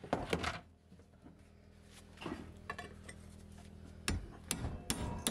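Hammer striking a steel pin punch set in a part-drilled hole in a rusty steel strap, driving out an old fastener: several sharp metal-on-metal strikes, a quick cluster at the start and more, spaced out, in the second half.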